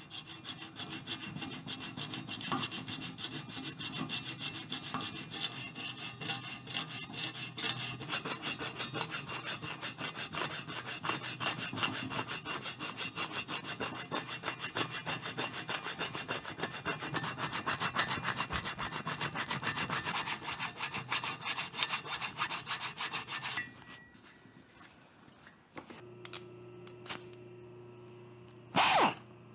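Hand file rasping back and forth in quick, even strokes across a TIG-welded aluminum cooling fin on a Triumph Tiger Cub cylinder head, working the weld build-up down to shape. The filing stops about 23 seconds in. Near the end a compressed-air belt file gives one short, loud burst.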